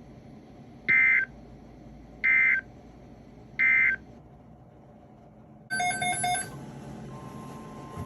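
NOAA Weather Radio SAME end-of-message data burst: three short, identical two-tone digital chirps, about a second and a half apart, closing the weekly test. Near the end, a brief burst of several mixed tones, then steady hiss.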